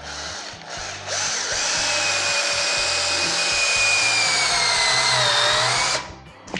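Cordless drill-driver driving a toilet's side fixing screw home. Its motor whine comes up fully about a second in, holds steady, sags in pitch near the end as the screw draws tight, then stops suddenly.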